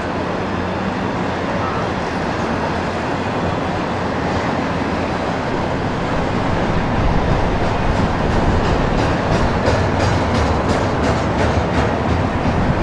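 Double-stack intermodal freight train's well cars rolling past at close range: a steady rumble of steel wheels on rail that slowly grows louder, with a run of regular clicks from the wheels over rail joints in the second half.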